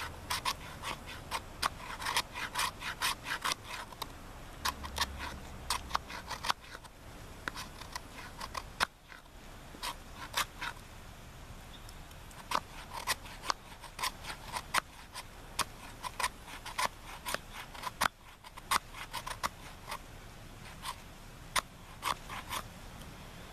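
Sharp 90-degree spine of a Mora Bushcraft Black knife scraping shavings off a fatwood stick: a long run of short rasping strokes in irregular bursts, with a couple of brief pauses.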